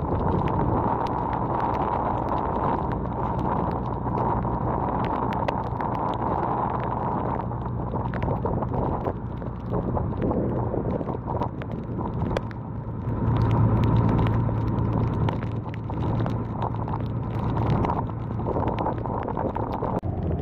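Small boat's motor running steadily, louder for a couple of seconds about thirteen seconds in, with scattered clicks over it.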